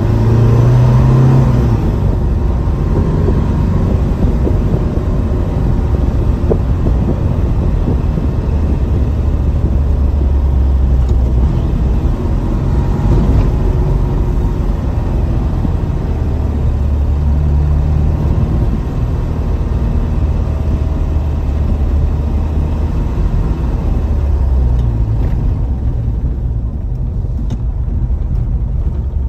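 1975 Porsche 914's air-cooled flat-four engine heard from inside the cabin while driving. Its low drone rises and falls in pitch as the revs change, over road noise, and it eases off near the end.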